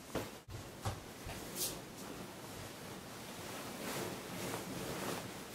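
Duvet and bedding rustling as a blanket is pulled up and tucked around someone lying in bed, with a few soft bumps in the first second.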